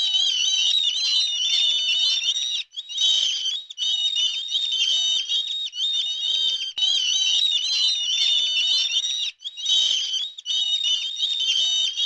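A large flock of seabirds calling over one another in a dense, high-pitched chatter. The sound breaks off for a moment a few times.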